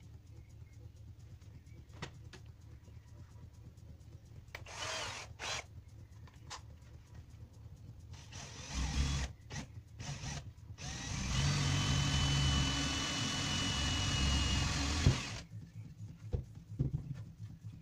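Cordless drill boring into the butt end of an axe handle: a few short bursts, then a steady run of about four seconds that stops suddenly. It is drilling the hole for a cartridge case inlay.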